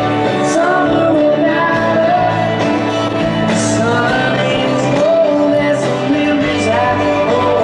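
Live country-rock band playing a song, with a singer's long, sliding notes over guitars and drums and several cymbal crashes.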